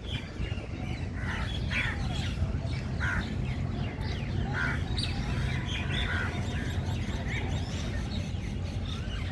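Several birds chirping and calling, many short calls overlapping, over a steady low rumble.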